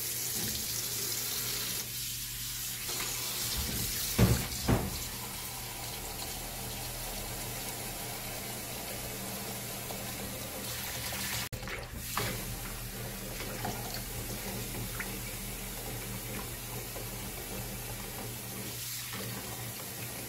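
Kitchen tap running steadily into a plastic basin in a stainless-steel sink, with hands swishing and rinsing garlic chives in the water. Two sharp knocks about four seconds in, and a few lighter clinks later.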